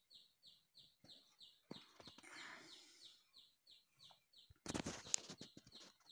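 Faint bird chirping: a short falling chirp repeated evenly about three times a second. A brief, louder burst of noise comes about three-quarters of the way through.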